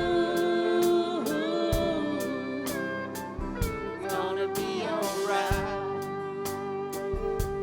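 Live music: guitar with a steady beat of about two hits a second under a held, gliding melody line, an instrumental break between sung verses of a reggae song.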